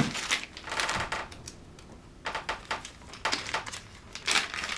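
Small sewing-machine accessories such as presser feet clicking and rattling as they are handled in their packaging, in several short irregular clusters.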